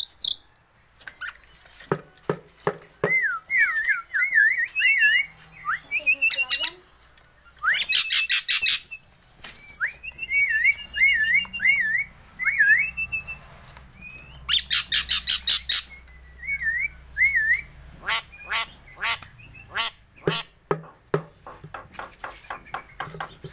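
Caged Javan myna calling. Bursts of harsh, rapid rattling squawks alternate with wavering whistled phrases that slide up and down in pitch.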